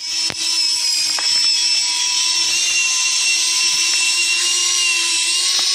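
The small electric drive motor of a scale-model Arjun Novo tractor runs with a steady, drill-like whine as the model pulls a loaded trolley, with a few faint clicks.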